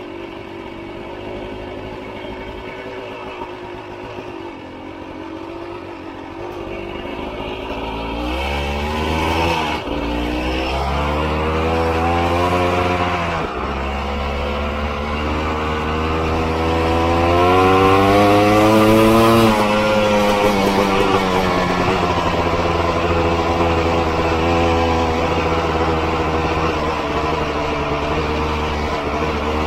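Honda CRM250 two-stroke single-cylinder dirt bike engine running under way: low and steady at first, then the revs climb about eight seconds in, dropping back sharply at two gear changes. The pitch rises to a peak about two-thirds of the way through, then eases to a steady cruise.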